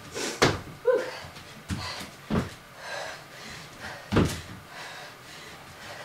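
Thuds of sneakered feet and hands landing on an exercise mat over a wooden floor during sit-thru burpees: several landings spread unevenly, the loudest just after the start and about four seconds in, with a short squeak about a second in.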